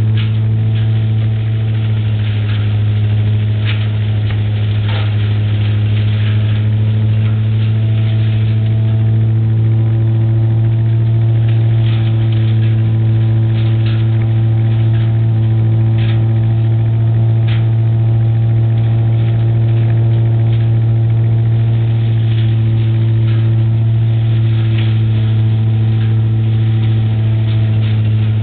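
Giant Vac towable leaf loader's 30 hp four-cylinder air-cooled Wisconsin engine running steadily at working speed, a loud, even drone. Scattered brief clicks come as raked leaves and sticks are drawn up the intake hose.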